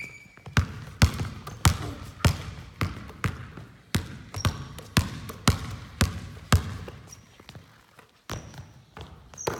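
Basketball dribbled on a hardwood gym floor: sharp bounces about twice a second, echoing in the large hall, then a short lull and a few more knocks near the end. A few brief high squeaks sound in between.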